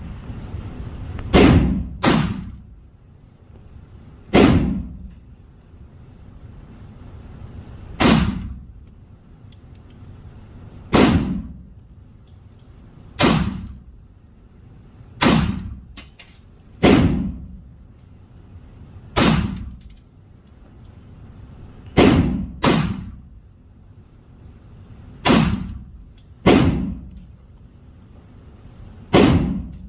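Gunshots at a shooting range: about fourteen single shots fired at an uneven pace, a second to a few seconds apart, sometimes two in quick succession, each with a short echoing tail.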